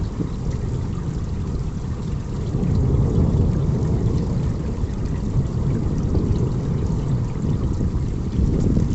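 Heavy rain falling steadily: a dense, low rushing noise with faint scattered ticks of drops.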